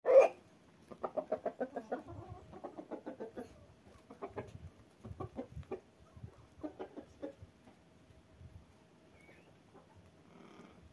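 Chickens clucking: a louder call at the very start, then spells of quick, short clucks that die away in the last few seconds.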